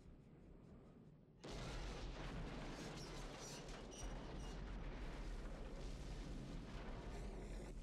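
A steam locomotive crashing into a ravine and exploding: a quiet, sudden blast about a second and a half in, going on into a steady rumble with crackling debris.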